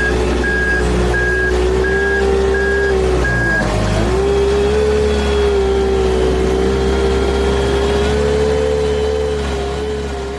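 A vehicle's backup alarm beeps steadily for the first three and a half seconds over a running diesel engine with a steady whine. The engine sound continues after the beeping stops.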